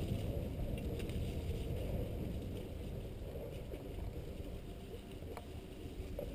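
Mountain bike rolling over a dirt singletrack: a steady low rumble of tyres and bike noise, with a couple of sharp clicks.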